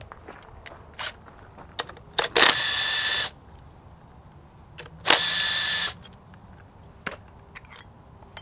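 Cordless impact wrench running in two bursts, about a second each and a couple of seconds apart, hammering on a socket extension to break loose a fastener on a GY6 scooter engine's crankcase. Light metallic clicks of parts being handled fall between the bursts.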